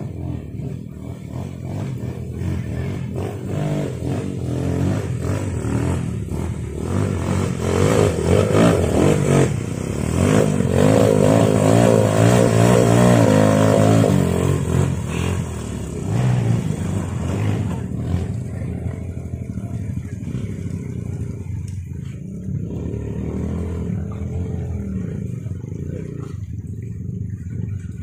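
Dirt bike engine revving hard as the bike is forced through a rocky river crossing, the pitch rising and falling and loudest near the middle, then running more steadily. Rushing river water is heard underneath.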